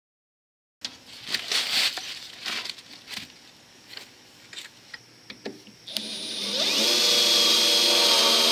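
Knocks and handling clatter, then a corded Ryobi circular saw switched on about six seconds in: its motor spins up with a rising whine to full speed and runs steadily, then cuts off at the very end.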